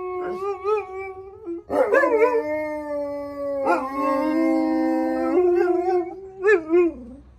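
Alaskan Malamutes howling. A howl breaks off about a second and a half in, then a long howl starts with an upward swoop and is held for several seconds in steps of pitch, followed by two short wavering calls near the end. The howling is set off by a passing ice cream van's chimes.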